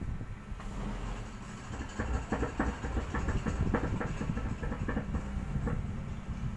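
Speakers of a stereo amplifier under repair giving a steady low hum, with a run of irregular crackles and pops from about two seconds in until near the end as the input wires are handled. This is the test of whether the formerly silent channel now passes sound.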